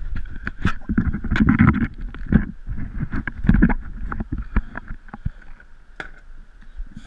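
Irregular knocks, bumps and rustling as a wetsuited diver shifts about on the dock edge with the camera on him. They are loudest in the first few seconds and tail off, over a faint steady hum.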